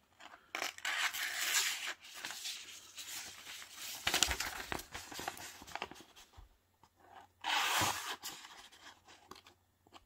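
Paper being sliced with the black-nitride blade of a Spartan Blades Ronin Shoto folding knife: three drag cuts, each a second or two of dry papery hissing, about a second in, about four seconds in and about eight seconds in. The easy cuts show a sharp edge.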